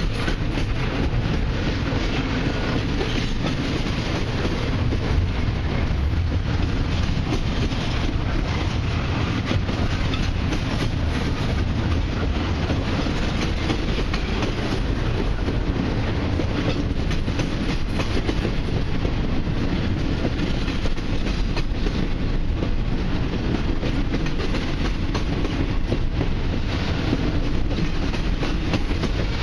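Double-stack intermodal well cars of a freight train rolling past close by: a steady rumble of steel wheels on rail, with a constant clickety-clack of wheel clicks running through it.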